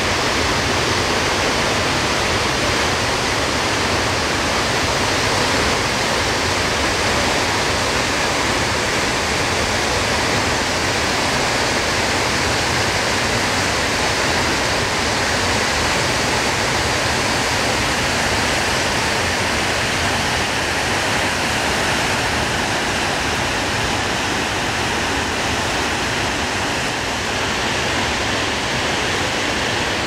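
Steady, unbroken rushing roar of a tall mountain waterfall crashing down onto rocks.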